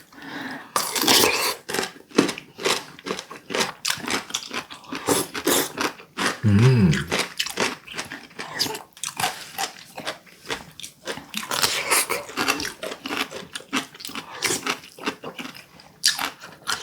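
Close-miked eating sounds: mouth noises of chewing, slurping and crunching as rice porridge is eaten, many quick wet smacks in a row, with a short low hum about six and a half seconds in.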